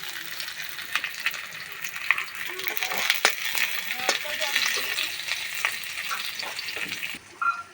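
Food frying in hot oil in a pan, a steady sizzle broken by sharp clicks of stirring against the pan. The sizzling cuts off suddenly near the end.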